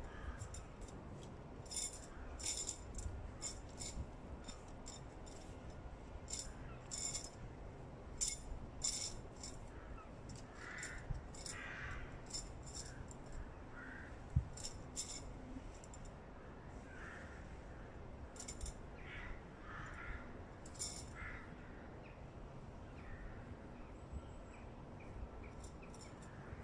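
Camping gear being handled: a run of scattered sharp clicks and light rattles.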